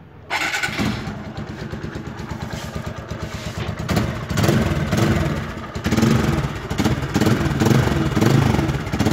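A TVS Apache RTR 180's single-cylinder four-stroke engine starts up about a third of a second in and runs through a newly fitted aftermarket Akrapovic slip-on exhaust. It idles at first, then is revved with the throttle about four seconds in and again from about six seconds, so that it runs louder.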